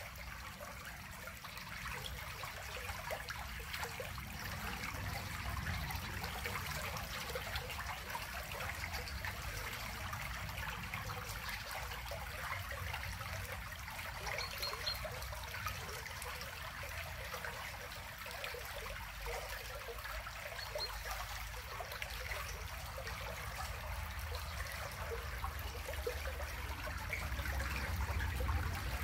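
Small stream flowing and trickling over stones, a steady rush of water. A low rumble grows louder near the end.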